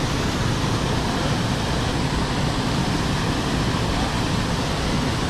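Steady rushing of a small waterfall cascading into a rocky pool, an even wash of water noise with no breaks.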